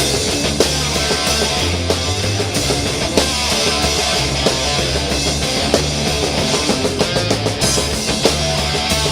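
Loud heavy rock music with electric guitar, bass and drums playing steadily.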